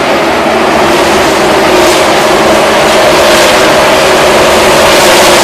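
The field of NASCAR Cup Series stock cars racing past at full throttle, many V8 engines overlapping in one loud, continuous sound that builds slightly as the pack goes by.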